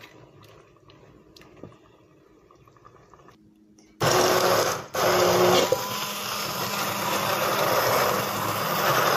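Handheld stick (immersion) blender switched on about four seconds in, its motor running steadily as it purées chunky tomato-and-vegetable sauce in a steel pot. It stops for a moment just before five seconds, then runs on. Before it starts there are only a few faint clicks.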